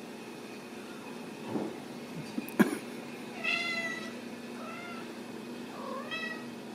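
Ragdoll kittens meowing: three short, high calls in the second half, the last one rising in pitch. A sharp knock comes just before the first meow, over a steady low background hum.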